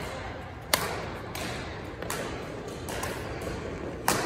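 Badminton rackets striking a shuttlecock during a doubles rally: sharp cracks, the loudest about three-quarters of a second in and another just after four seconds, with lighter hits between.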